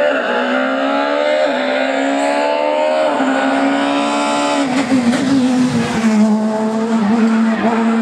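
Škoda Fabia S2000 rally car's four-cylinder engine at full throttle, its pitch climbing through two quick upshifts. About two-thirds of the way in the note drops sharply as the car comes off the throttle and passes close by, running lower and unsteady after that.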